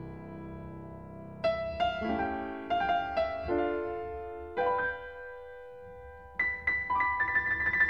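Instrumental piano music. A held chord fades over the first second and a half. Then comes a slow melody of struck notes and chords, which grows busier near the end.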